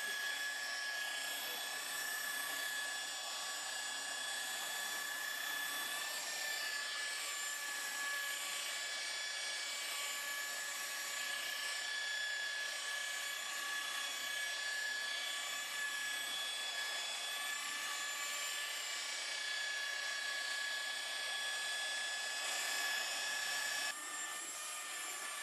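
Electric rotary polisher with a foam buffing pad running at low speed over car paint, a steady motor whine. The level steps down slightly near the end.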